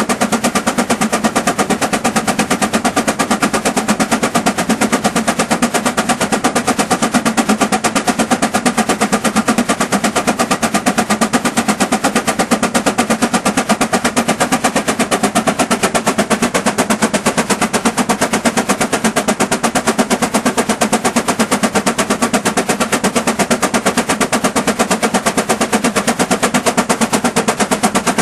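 Greyhound steam traction engine working hard against a prony brake at about 134 horsepower, its exhaust chuffing out of the smokestack in a fast, even rhythm of sharp beats.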